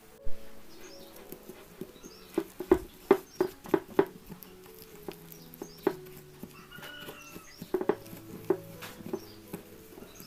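Wire hand whisk clicking and scraping against a glass bowl while beating butter and sugar, in irregular taps that make the bowl ring briefly, with a sharp knock just after the start and a quick run of taps a few seconds in.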